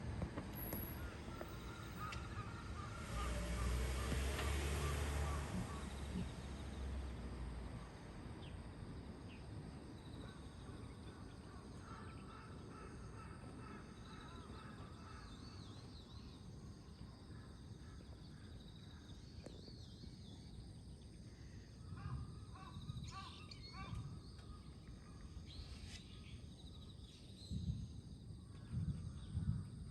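Starlings calling in scattered chirps and whistles. Early on a loud noise with a strong low rumble rises and dies away over about four seconds, and a few dull low thumps come near the end.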